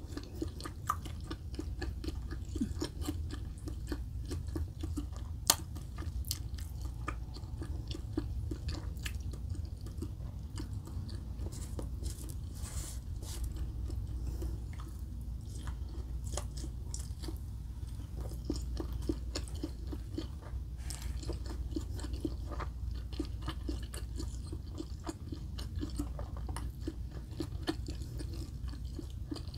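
Close-miked chewing and biting of a crisp pan-fried chicken wonton: many small mouth clicks and crunches, with one sharper, louder click about five seconds in, over a steady low rumble.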